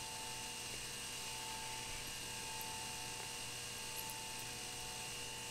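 Faint, steady electrical hum and hiss with a few constant whine tones.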